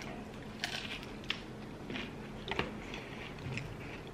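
Close-miked eating sounds: chewing, with scattered short wet mouth clicks and crackles as roti and curry are bitten and chewed.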